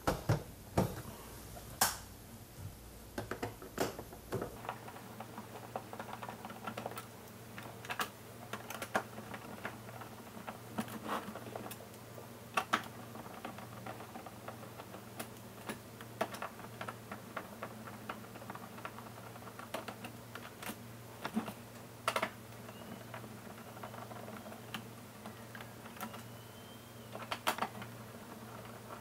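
Irregular sharp clicks and knocks of the plastic body of a Roborock robot vacuum being turned over and worked on by hand during disassembly, over a low steady hum.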